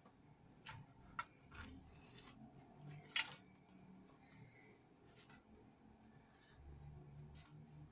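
Faint rustling and a few light clicks as a thin spring roll pastry sheet is handled and laid flat on a plastic cutting board, the sharpest click about three seconds in.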